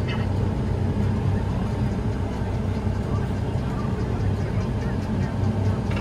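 New Holland combine harvester running steadily while cutting wheat, heard from inside the cab: an even, low engine and machinery drone.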